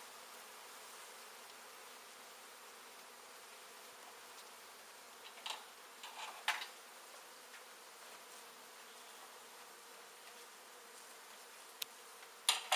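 A honey bee colony buzzing steadily, with a few short knocks or scrapes about halfway through and again near the end.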